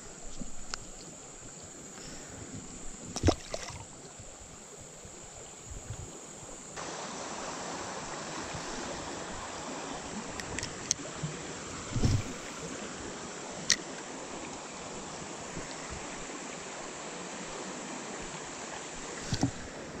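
Shallow creek water flowing, a steady rushing hiss that grows louder about seven seconds in, with a few scattered knocks and clicks of handling.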